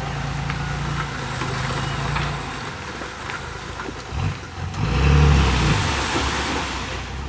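A heavy earthmoving machine's diesel engine runs steadily, then its note drops away. About five seconds in it revs up louder and holds under load.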